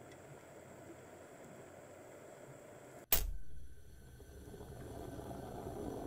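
Aluminium stovetop moka pot brewing espresso: coffee gurgling and bubbling up through the central spout. About three seconds in there is one sudden sharp clack, the loudest sound, after which the gurgling hiss builds again.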